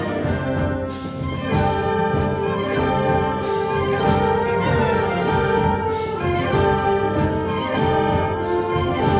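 Concert wind band playing a slow Moors-and-Christians Christian march (marxa cristiana). Full held chords from brass and clarinets move over a heavy march beat, with a percussion strike about once a second.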